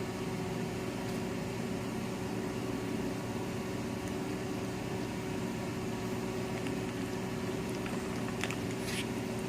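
Microwave oven running with a steady electrical hum, with a couple of light clicks near the end.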